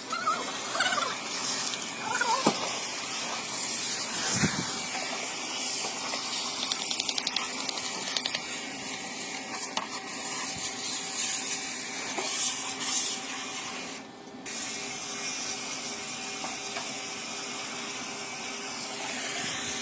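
Steady spray of water, as from a hose or washer jet used to wash down an air conditioner during servicing. The spray breaks off for a moment about two-thirds of the way through, then carries on.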